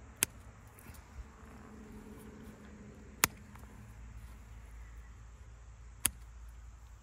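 Red hand pruners snipping through thin branches of a young dormant apple tree: three sharp snips, about three seconds apart.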